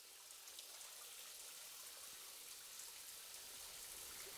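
Rain falling, a faint, steady hiss of drops that swells a little in the first second.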